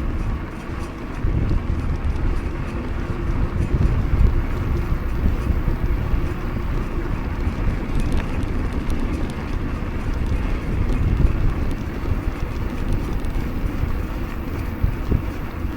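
Wind buffeting the microphone and rolling tyre rumble from a full-suspension mountain bike ridden along a paved road, a steady low rush that rises and falls with the airflow.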